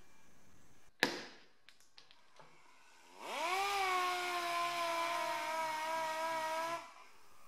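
A sharp snap about a second in. Then an air-powered dual-action sander spins up with a rising whine and runs steadily with air hiss for about three and a half seconds before stopping, scuffing the painted steel quarter panel to roughen it.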